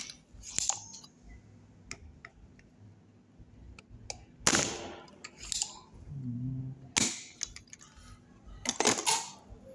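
Spring-loaded desoldering pump (solder sucker) firing, a sharp snap about three times, each some two seconds apart, with smaller clicks in between, as solder is sucked out of blocked through-holes on a circuit board.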